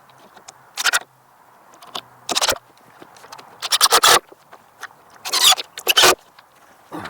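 Wooden greenhouse frame pieces being handled and fitted, with a series of loud scrapes and knocks, each about half a second long, the heaviest around the middle.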